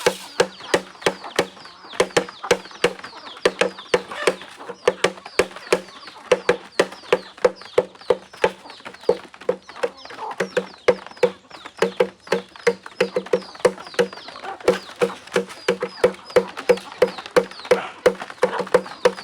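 Flock of free-range chickens clucking, with many sharp clicks and taps scattered through, several a second.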